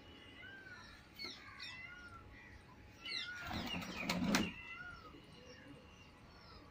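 Birds giving short, high chirping calls around a pigeon loft, with a louder, rough scuffle-like burst about three and a half seconds in that lasts roughly a second.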